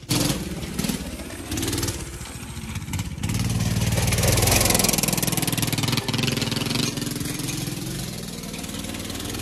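Go-kart's small engine revving hard as the kart slides across gravel, with the hiss of gravel and dirt spraying from the tyres. It is loudest around the middle as the kart passes close, then fades as it moves away.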